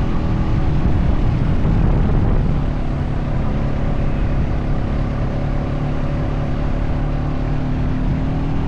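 Honda Foreman 520 ATV's single-cylinder engine running at a steady pitch under load while towing another ATV, with a steady rush of noise over it.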